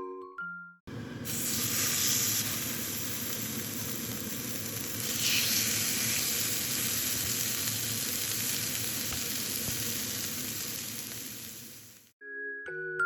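Food frying in a pan, a steady sizzle that starts about a second in and stops about a second before the end.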